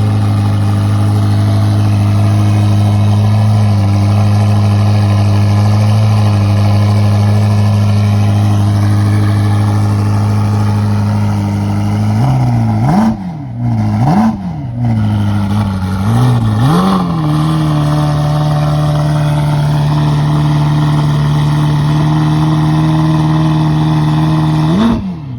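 Mazda MX5's 2.0-litre four-cylinder engine through a Friedrich Motorsport Group A cat-back exhaust, holding steady revs. About halfway through, the revs drop and climb again three or four times with brief dips in loudness, then hold steady again.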